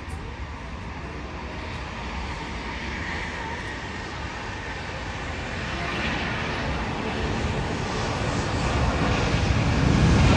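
Boeing 757-200 twin jet engines at takeoff power as the airliner accelerates down the runway: a rushing jet noise that grows steadily louder, swelling most sharply near the end.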